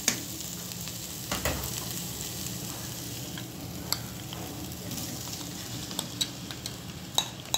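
Oil sizzling steadily in a kadhai where onion and ginger-garlic paste are frying, as mashed boiled potatoes are scraped into it off a plate with a metal spatula. Scattered sharp clicks of the metal spatula against the plate and pan come more often from about six seconds in.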